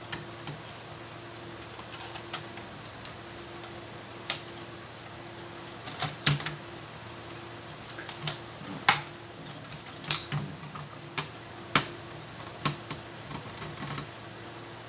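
Irregular clicks and light knocks of plastic cable connectors being handled and pushed into their sockets inside an opened DVD amplifier, over a faint steady hum.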